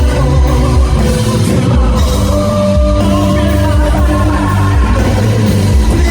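Live rock band playing loud, with drums, bass and guitars under a singing voice, as heard from the audience in a concert hall.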